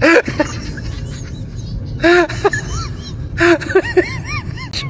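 A young child's voice: short, high-pitched squeals that rise and fall, in a few separate bursts, over a steady low background hum.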